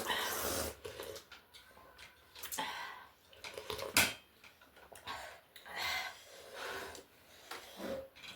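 Close-up eating sounds: irregular bursts of chewing and slurping. A single sharp clink of tableware about four seconds in is the loudest sound.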